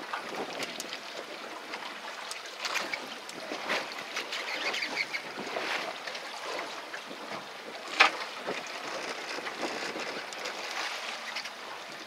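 Water noise around a drifting fishing boat, with scattered small knocks and one sharp knock about eight seconds in.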